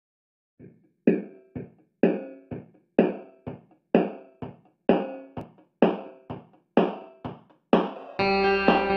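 Background music: a repeated plucked chord that rings and fades, a strong stroke about once a second with a softer one between, then a fuller sustained part comes in near the end.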